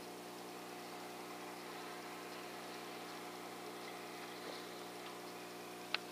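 A steady low hum made of several even tones, with one short sharp click near the end.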